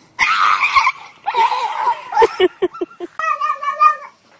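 Animal fight: harsh screeching and hissing, then squealing broken into quick pulses. About three seconds in, a cat gives one drawn-out, yowling cry.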